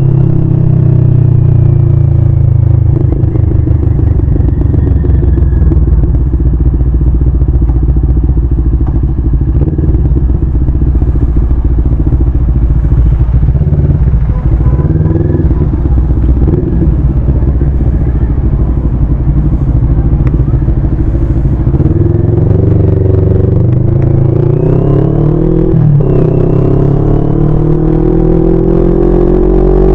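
CFMoto 400NK motorcycle's parallel-twin engine running under way, heard close up with heavy rumble on the microphone. Much of the time it runs low and slow in traffic, then it revs up in rising pitch through the last several seconds, with a brief dip as a gear is changed about 26 s in.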